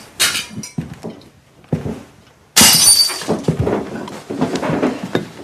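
Crockery breaking: a few knocks, then a sudden sharp crash about two and a half seconds in, followed by more clattering.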